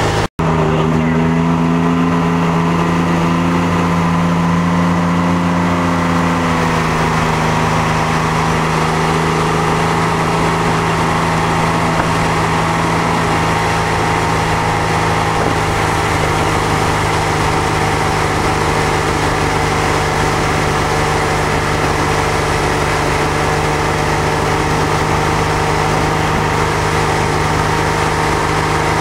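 Tow boat's engine running steadily at speed while pulling a wakeboarder, with the hiss of churning wake water over it. The sound breaks off for an instant just after the start.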